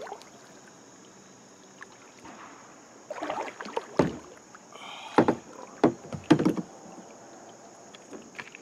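Water splashing and knocks on a plastic kayak hull as a landed northern pike is lifted out of the water and thrashes: a cluster of sharp splashes and thuds from about three to seven seconds in.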